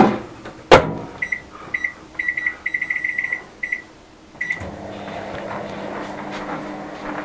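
Microwave oven being set to defrost meat: two loud knocks, then a run of short keypad beeps at one pitch, some single and some in quick strings, then the oven's steady hum starting about four and a half seconds in as it begins running.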